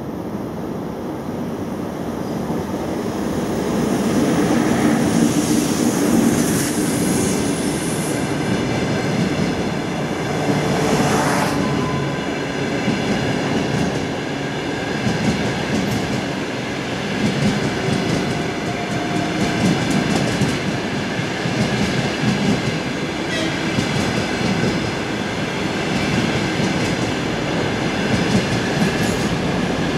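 EP2K electric locomotive and its passenger coaches passing, the wheels clattering steadily over the rails, with a couple of brief wheel squeals.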